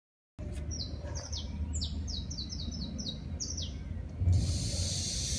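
A small bird chirping over and over in short, quick, falling notes over a low background rumble. About four seconds in there is a knock, and then a steady hiss starts, the high-pressure washer's water jet spraying.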